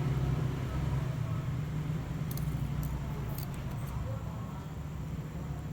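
Steady low background hum. A few faint, light clicks about two to three and a half seconds in come from handling the twisted-pair wires and the plastic RJ45 plug as the wires are pushed in.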